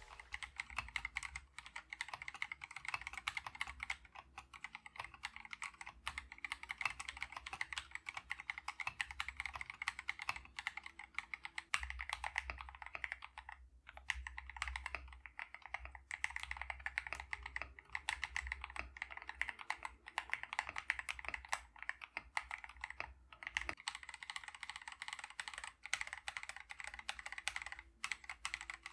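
Typing test on an Epomaker Mini Panda 64 mechanical keyboard fitted with lubed KTT Mint linear switches: fast, continuous keystrokes with short pauses about 14 seconds in and again near 23 seconds.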